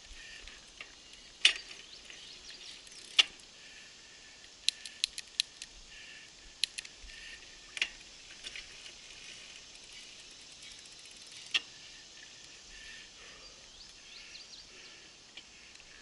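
Mountain bike rolling on a paved path, with sharp clicks and rattles from the bike now and then, including a quick run of clicks about five seconds in. Under them, a steady high insect drone.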